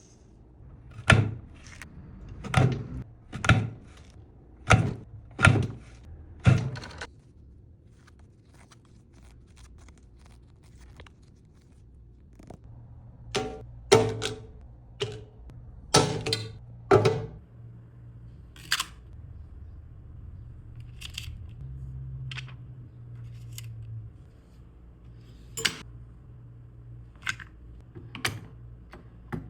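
A series of sharp clunks and clicks from hand work, about one a second at first, then in irregular clusters over a faint low steady hum.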